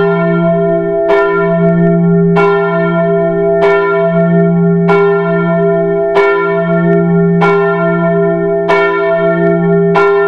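Church bell tolling, struck about every 1.2 seconds, each stroke ringing on into the next.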